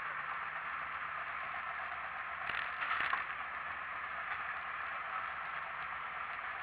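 Steady wind and road rush of a motorcycle ride picked up by the rider's microphone, with a short scuffing knock about two and a half to three seconds in.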